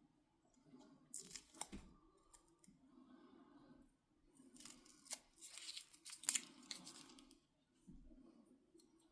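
Faint scraping and rustling with light clicks from small hands-on bench work on a model. The sounds come in two bursts: one about a second in, and a longer one from about four and a half to seven seconds.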